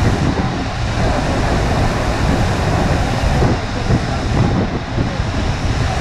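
A FlowRider surf simulator's sheet of pumped water rushing steadily up its ramp, a loud continuous rush with a low rumble underneath.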